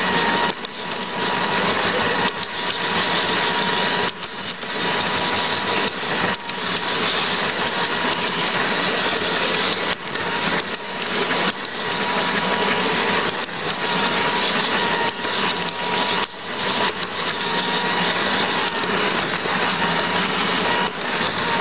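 Garden-scale model locomotive running along its track, heard up close from on board: a steady electric motor whine over a dense, continuous rattle of wheels on rails.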